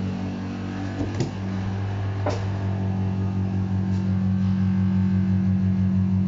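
Vented tumble dryer running just after being started, its motor giving a loud steady deep hum with a faint regular pulse. Two short knocks come about a second and two seconds in.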